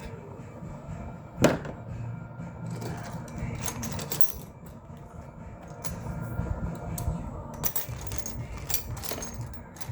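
Small metal tools clinking and clicking as Torx bits are picked through and tried, with one sharper knock about a second and a half in.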